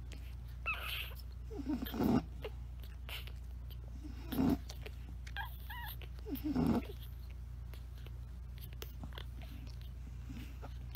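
Newborn bulldog puppies nursing, giving short grunts and squeaks every second or two, with one higher wavering whimper about five and a half seconds in. A steady low hum runs underneath.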